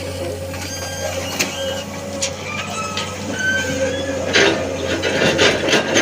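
Excavator running steadily, with short high squeaks and sharp knocks over the engine; the knocks and clatters come thicker from about four seconds in.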